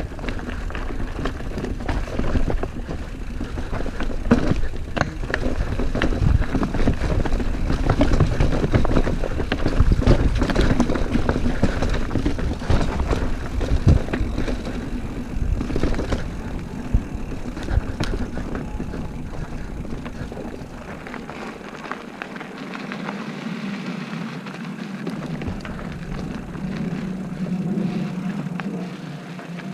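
Mountain bike descending a rough trail at speed, with wind rumbling on the microphone and the bike rattling and clattering over the ground in many small knocks. About 21 s in the deep rumble falls away, leaving a steadier, quieter rushing hum.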